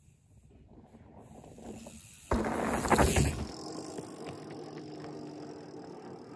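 Hardtail mountain bike riding close past the camera on a dirt trail: a sudden loud rush of tyre and frame rattle for about a second, then quieter tyre noise on dirt with a few light clicks.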